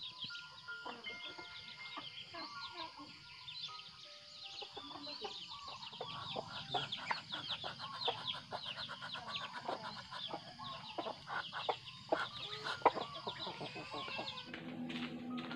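Farmyard chickens clucking amid a dense chatter of quick, high chirps, with music coming in near the end.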